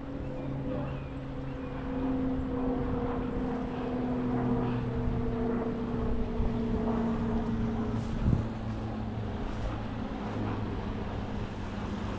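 Steady engine drone whose pitch sinks slowly, over wind and rushing water, with a single knock about eight seconds in.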